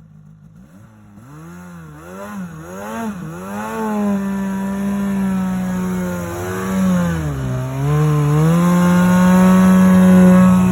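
Snowmobile engine revved hard: a few quick rises and falls, then held at high revs with one brief dip, as the rider pins the throttle to work a sled stuck in deep snow loose.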